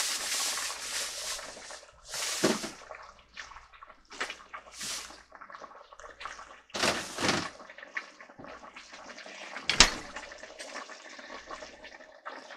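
Thai yellow chicken curry boiling in a stainless steel stockpot: irregular bubbling, louder over the first second or so, with one sharp pop near the end. The curry is being boiled down to thicken before the coconut milk goes in.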